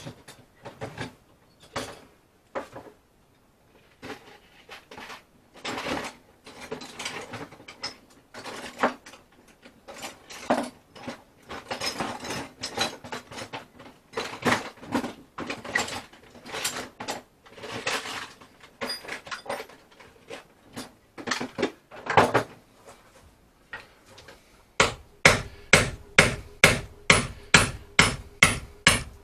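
Hand tools working on a wooden boat's old timbers: irregular clattering, knocking and scraping, then near the end a steady run of hammer blows, about three a second.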